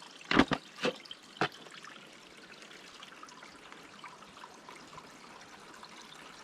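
Water trickling softly as a soft plastic water-filter pouch is filled at a stream, after four sharp clicks in the first second and a half.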